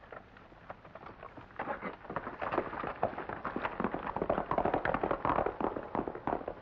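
A horse's hooves galloping: a fast, dense clatter of hoofbeats that starts about a second and a half in, grows louder, and eases off slightly near the end.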